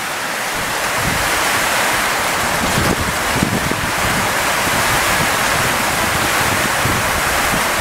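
Heavy tropical-storm rain pouring down in a steady hiss, with strong gusty wind buffeting the microphone in irregular low rumbles from about half a second in.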